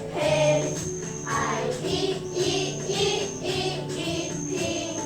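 A children's phonics song plays, with voices singing over a backing track and a high jingle that comes back about once a second.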